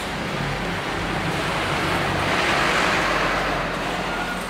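Background rushing noise that swells to a peak about two and a half seconds in and then eases off, over a low steady hum.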